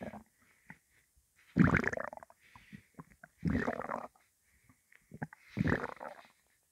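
Hungry human stomach gurgling: three loud, drawn-out gurgles about two seconds apart, with small pops in between. The empty stomach holds only water.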